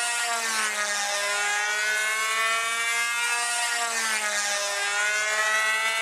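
Super Tigre .51 two-stroke glow engine of a radio-controlled model airplane, running in flight with its muffler gone and pulling hard. Its steady note wavers gently up and down in pitch as the plane flies about.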